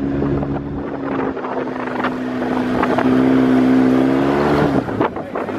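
Dirt bike engine running at a steady pitch, then easing off with a drop in pitch near the end. A few short clicks or knocks sound over it.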